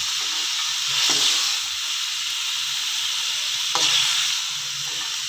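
Vegetables sizzling in hot oil and spice masala in a metal pan while being stir-fried with a metal spatula, with a steady hiss and two louder stirring strokes, about a second in and near four seconds.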